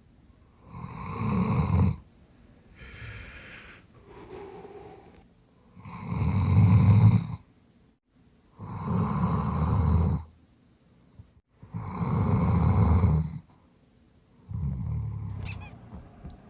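Sleeping Doberman snoring loudly: five long, rasping snores come a few seconds apart, with two softer breaths between the first two.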